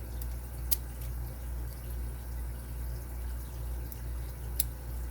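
Two sharp, small metal clicks from tools and parts handled inside a disassembled padlock, one shortly after the start and one near the end, over a steady low hum.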